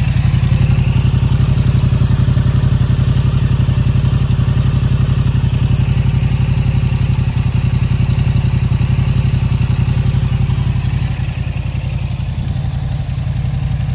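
2023 Yamaha MT-07's 689 cc parallel-twin engine idling steadily through a newly fitted Akrapovic exhaust, a low, even pulsing note.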